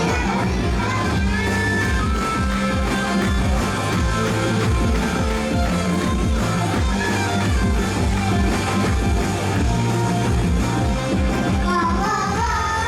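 Upbeat pop-rock music with a steady beat and singing.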